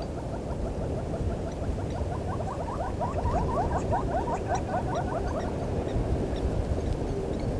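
An animal calling in a rapid series of short rising notes, about six a second, that swells and fades over roughly four seconds. A steady low rumble lies underneath.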